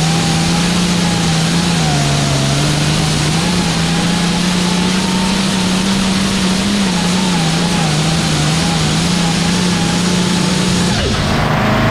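Hot farm class pulling tractor's engine running hard and loud at high revs, its pitch holding nearly steady with small dips and wobbles. The sound changes abruptly near the end.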